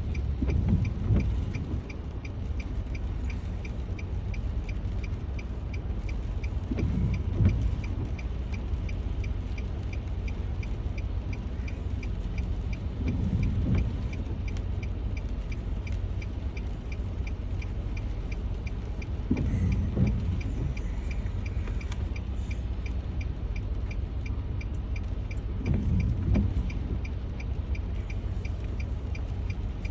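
Inside a car stopped at a traffic light: the engine idles with a steady low rumble while the turn-signal relay ticks at an even rate, and the windscreen wipers sweep across about every six and a half seconds in the rain.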